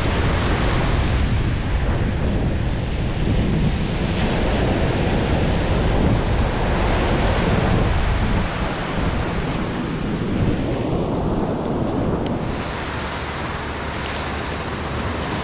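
Ocean surf breaking and washing up a sandy beach, with wind buffeting the microphone in a steady low rumble.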